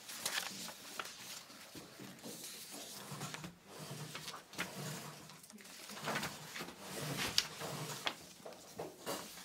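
Sheets of paper being handled on a table: soft rustling and sliding with scattered light taps and clicks.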